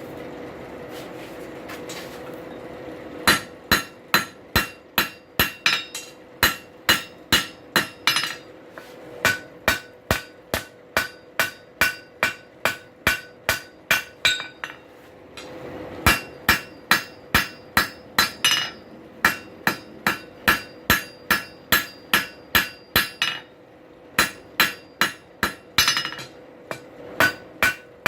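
Blacksmith's hammer striking hot steel on an anvil, the shank of a drive hook being drawn out into a nail. The ringing blows start a few seconds in and come about two to three a second, in three runs with short pauses between, over a steady hum.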